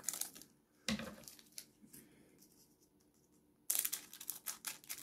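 Foil wrapper of a Pokémon trading card booster pack crinkling as it is handled, then, near the end, scissors cutting it open in a run of crisp, crackling snips.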